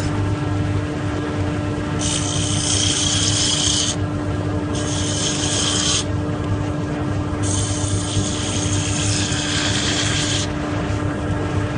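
Wood lathe running with a steady hum while a turning tool cuts into the spinning wood in three scraping passes, the last one the longest.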